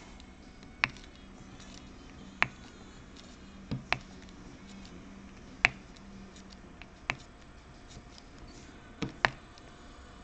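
Diamond-painting drill pen pressing drills onto the canvas: sharp little clicks, about one every second and a half, two of them with a softer tap just before.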